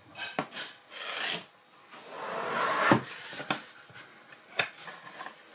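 Tight-fitting cardboard lid of a gimbal box being slid up and off, paper-on-paper scraping that builds over a second and ends in a knock as the lid comes free, followed by a few light taps of cardboard.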